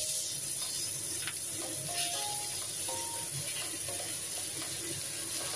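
Meat-wrapped enoki mushroom rolls sizzling in a little hot oil in a steel wok, a steady loud sizzle as more rolls are laid in.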